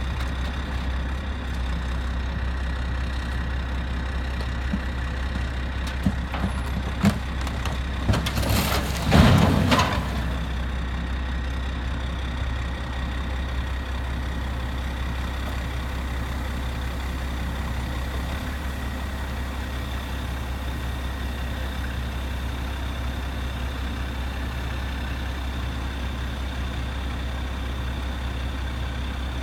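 A large vehicle's engine idling steadily with a low hum. There are a few sharp knocks about six to seven seconds in, and a brief louder rush of noise about nine seconds in.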